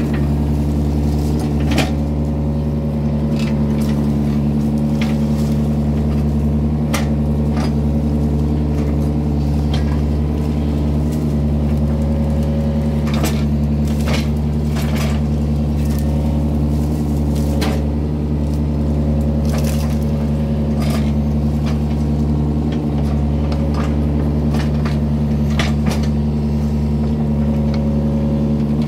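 Yanmar mini excavator's diesel engine running steadily at working speed, with many sharp clicks and knocks scattered irregularly throughout.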